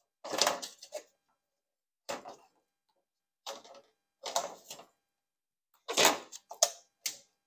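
Rear-glass trim molding of a 1981 Corvette being pried off its retaining clips by hand and with a hook tool. Irregular short scraping and clicking noises come in about seven separate bursts with pauses between, the loudest about a quarter-second in and again about six seconds in.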